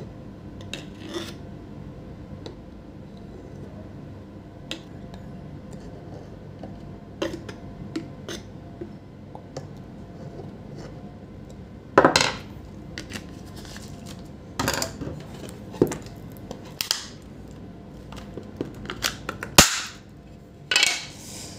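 A screwdriver prying at the glued seam of a plastic AC power adapter case: scattered light clicks and scrapes, then from about halfway a string of loud, sharp cracks and knocks as the case is forced apart.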